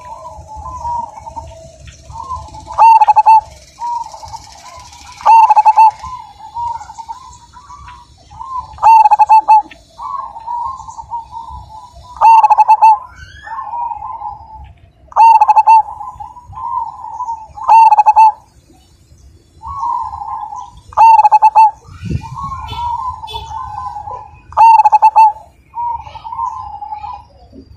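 Zebra dove (perkutut) singing its cooing song: loud phrases every few seconds, with softer trilling coos between them.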